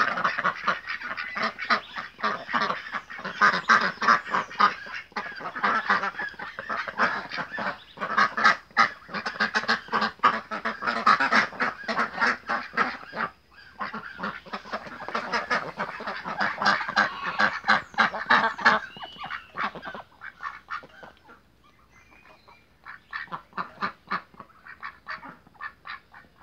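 A flock of domestic ducks quacking constantly, many birds calling over one another in a loud, dense chorus. About 20 seconds in, the quacking thins out and gets quieter.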